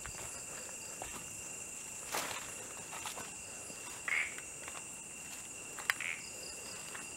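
A steady high-pitched chorus of night insects, like crickets, trilling without a break. A few footsteps crunch on dry leaf litter, scattered about two, four and six seconds in.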